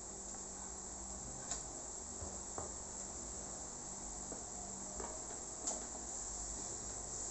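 Quiet eating sounds: chopsticks clicking against a bowl as instant noodles are stirred, lifted and eaten, with a few sharp clicks, over a steady high hiss.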